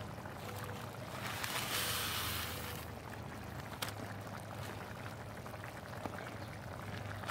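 Dry long-grain white rice poured from its package into a cast iron pan of boiling tomato broth: a soft hiss lasting about a second and a half, starting about a second in, over the bubbling of the boil and a low steady hum.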